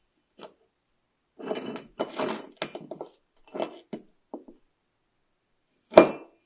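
Metal parts being handled and shifted, with a run of short clatters and clinks, then one sharp knock near the end as a part is set down.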